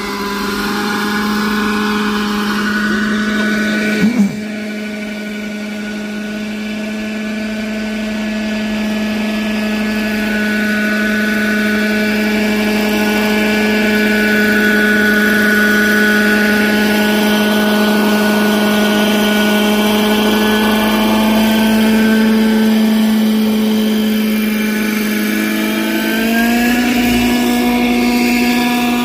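Hirobo EC-135 scale RC helicopter running at steady rotor speed: a steady pitched hum with a whine above it. There is a brief sharp blip about four seconds in, and the pitch rises a little near the end.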